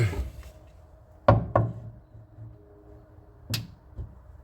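Sharp knocks, two in quick succession about a second in and another near the end, as the trunk weatherstrip's retaining pins are tapped into their holes with a piece of wood.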